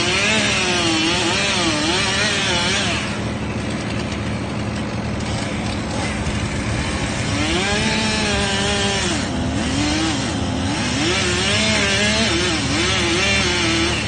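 Chainsaw cutting wood, its engine pitch rising and falling over and over as it works, easing off for a few seconds near the middle. A steady lower engine hum runs underneath.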